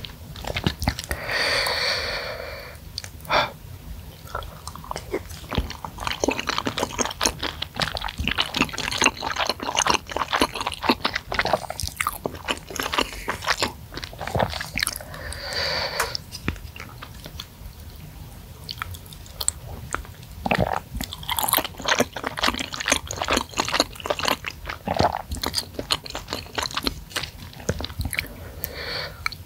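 Close-miked wet chewing and biting of spicy seblak with meatballs and noodles, a steady run of small mouth clicks, with two longer noisy stretches, one near the start and one about midway.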